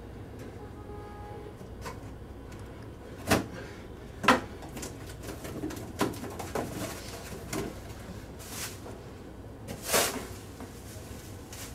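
Cardboard box being opened on a table: two sharp knocks about a second apart, then smaller knocks and rustling of the flaps and packing. Near the end, a loud crinkly swish as a long sheet of plastic packing is yanked out and flung.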